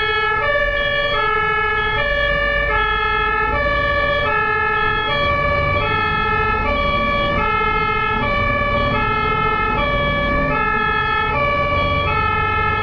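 German ambulance two-tone siren sounding continuously, switching between a high and a low note about every two-thirds of a second, over a low rumble.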